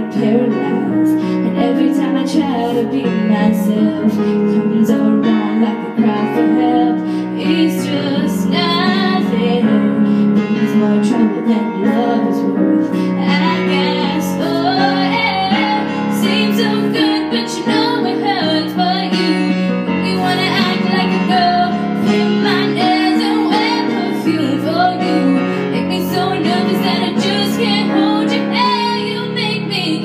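A young girl singing a pop song over instrumental accompaniment, her voice carrying the melody with sliding notes.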